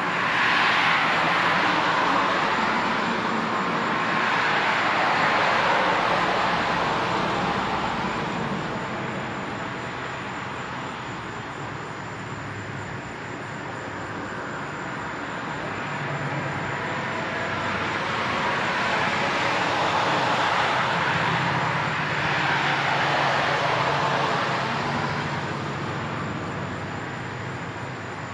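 Cars driving past on a road, tyre and engine noise swelling and fading as each goes by: two pass-bys in the first several seconds, a quieter lull, then two more in the second half.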